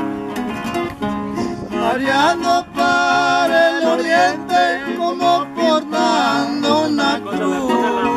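Several acoustic guitars playing a corrido together, with a man's singing voice coming in over them about two seconds in.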